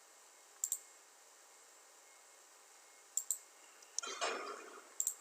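Computer mouse clicking in quick pairs, three times, with a short soft rustling noise a little before the last pair.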